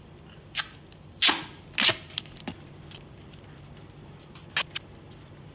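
Duct tape being pulled off the roll and torn in short rips, the two loudest about a second and a half in, with smaller rips and crackles around them.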